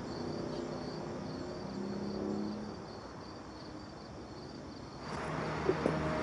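Crickets chirping steadily. About five seconds in, louder music comes in.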